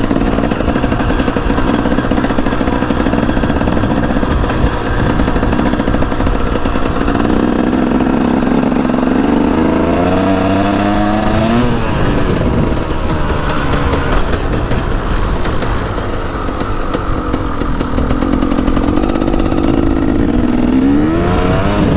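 KTM 300 EXC two-stroke dirt bike engine being ridden hard, revving up with its pitch climbing steeply about halfway through, dropping off, and climbing again near the end.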